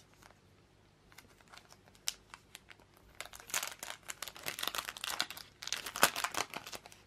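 Clear plastic sticker packet crinkling as it is opened by hand: scattered crackles that build into two longer stretches of crinkling, about three seconds in and again just before the end, the second the loudest.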